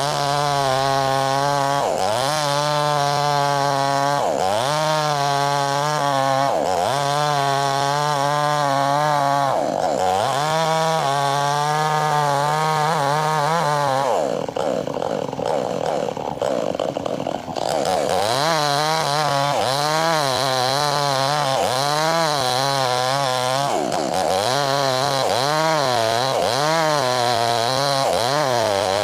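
Chainsaw ripping a log lengthwise at high revs, its engine pitch sagging and recovering over and over as the chain bites under load. About halfway through the steady tone fades for a few seconds into a rougher noise, then returns with quicker dips, about one a second.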